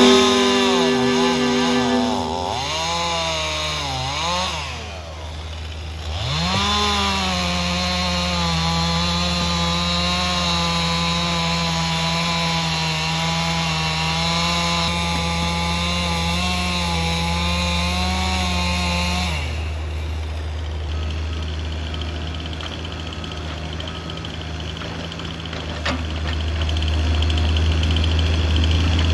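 Two-stroke chainsaw revving up and down for a few seconds, then held at full throttle for about thirteen seconds as it saws through wood, before it stops about two-thirds of the way through. A heavy engine idles low underneath throughout.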